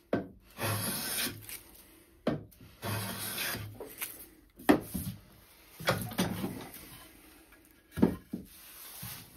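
Metal hand plane cutting along the edge of a spruce board: two long hissing strokes in the first four seconds, then sharp wooden knocks and scrapes as the plane is set down and the board is handled, the loudest knock about eight seconds in.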